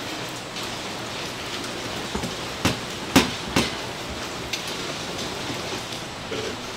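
A steady hiss with three sharp knocks in quick succession about three seconds in, the middle one loudest.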